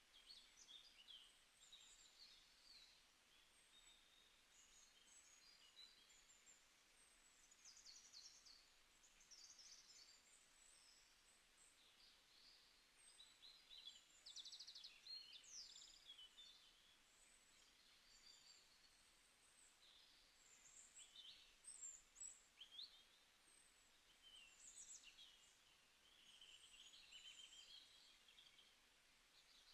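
Faint birdsong: several small birds chirping and trilling in quick, varied high calls, over a low hiss.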